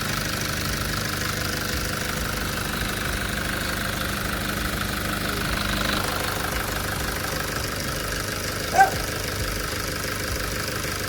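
Nissan ZD30 four-cylinder diesel engine idling steadily, having started and run normally from cold. A brief squeak cuts through near the end.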